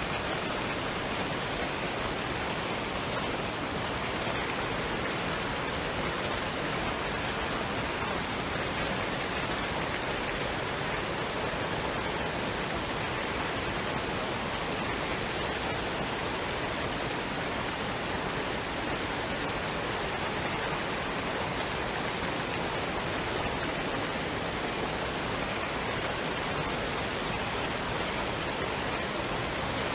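Waterfall and stream: running water with a steady, unbroken rushing hiss.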